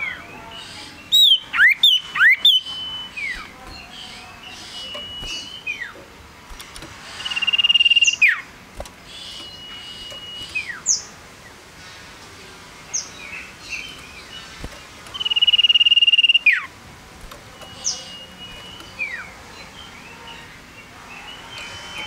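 Male common iora singing: long, level, high whistles that each end in a sharp downward slide, repeated every few seconds. About a second in comes a quick, loud run of swooping up-and-down notes.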